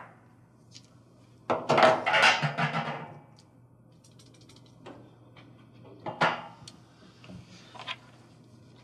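Handling noise from a washer lid switch and its wiring harness connector: a loud plastic rattle and rustle lasting about a second and a half, then a few sharp clicks later on, over a low steady hum.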